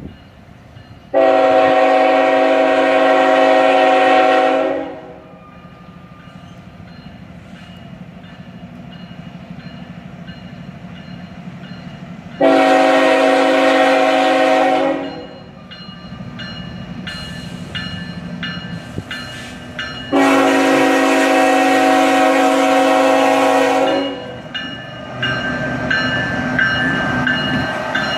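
Locomotive air horn sounding three long blasts several seconds apart, each a chord of steady tones. Near the end the train's rumble grows louder as it approaches, with high squealing tones over it.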